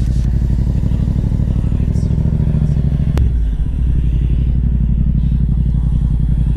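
Yamaha MT-07's parallel-twin engine running steadily under way, fitted with an Akrapovič exhaust. There is a single sharp click about three seconds in.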